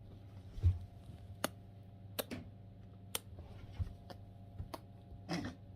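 Irregular sharp clicks and taps, about a dozen spread unevenly, over a faint steady hum.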